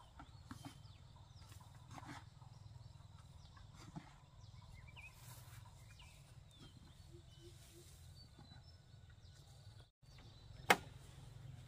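Faint outdoor farmyard ambience with scattered bird chirps and chicken clucks and a few light knocks. Near the end comes one sharp clink of a metal shovel biting into a pile of wood ash.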